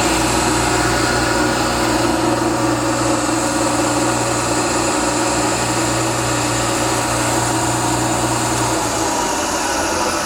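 Everett 16-inch dry-chop cutoff saw's 7.5 hp Baldor three-phase electric motor and blade running free at speed, a steady whine with no cut being made. About nine seconds in a low hum drops out and the pitch starts to sink as the blade begins to coast down.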